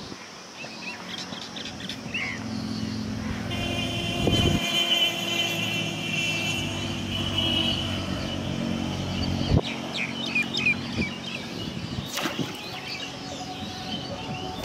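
A motor vehicle's engine runs with a steady pitch for several seconds, fading out about nine and a half seconds in. Small birds then chirp, with a few sharp clicks.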